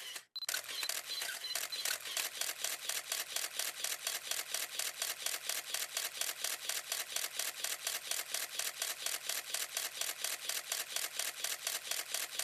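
A rapid, even series of sharp clicks, about five a second, that stops suddenly at the end.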